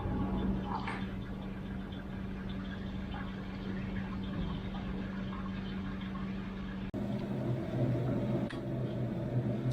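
Washtech UL Premium commercial undercounter dishwasher running mid-cycle: a steady motor hum with water moving inside. About seven seconds in the sound cuts out for an instant and comes back as a lower, louder hum.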